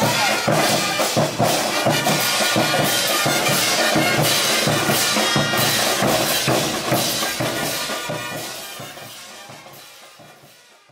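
Caporales song with a steady drum beat and wind instruments, fading out over the last few seconds.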